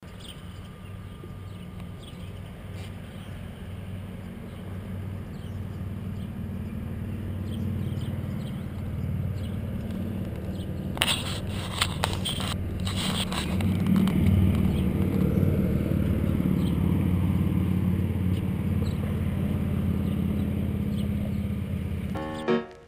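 Boat's outboard engine running steadily, getting louder over the first dozen seconds or so and then holding, with a few sharp knocks about halfway through.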